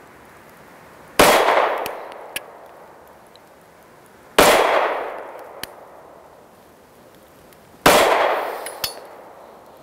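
Three shots from a 9mm Glock 43 pistol, about three seconds apart, each trailing off in a long echo. A short metallic clink follows each shot about a second later.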